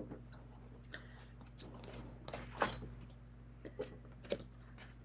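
Tarot cards being turned over and laid down on their decks by hand: a few scattered soft card taps and slides, the sharpest about halfway through, over a faint steady hum.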